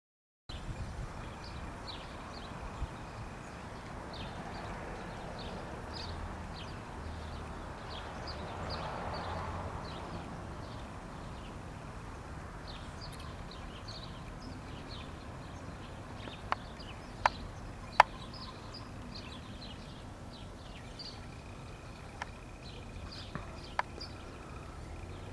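Outdoor background noise with short high chirps, typical of small birds, scattered throughout. Three sharp clicks or knocks about two-thirds of the way in are the loudest sounds.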